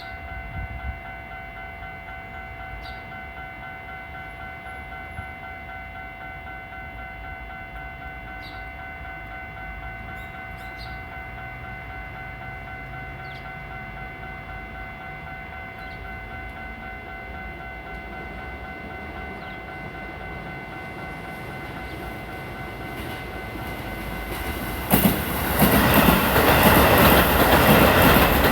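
Japanese level-crossing warning bell ringing steadily as a Keisei 3000 series electric train approaches, the train noise slowly growing. About 25 s in the train reaches the crossing and passes loudly, with wheels clattering over the rail joints.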